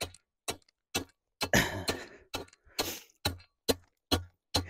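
Tamping bar rammed down onto drainage gravel at the bottom of a post hole, one sharp thud about twice a second, some with a gritty crunch of stone, packing the gravel firm.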